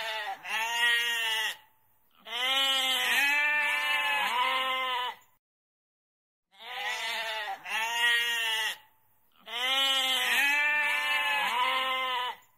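Goat bleating, heard in two matching rounds. Each round is a couple of short bleats followed by a long wavering bleat of about three seconds, with a pause of about a second between the rounds.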